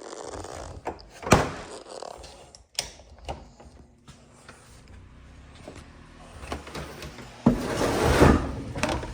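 Knocks and clunks of hard objects being handled, with a low steady hum coming in about three seconds in and a louder scraping rush near the end.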